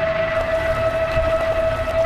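Motorboat engine running steadily: a constant high-pitched whine over a low rumble.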